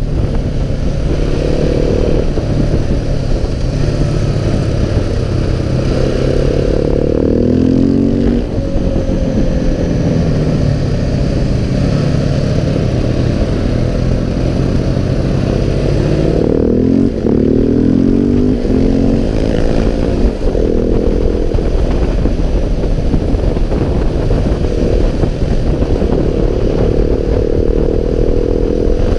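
KTM 690 SMC R's single-cylinder engine running hard as the bike is ridden, its pitch climbing and dropping repeatedly with throttle and gear changes.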